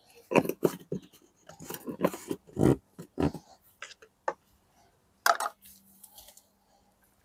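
A plastic foam-cannon bottle being handled after filling: a run of irregular knocks, clacks and scrapes, with one sharper knock about five seconds in.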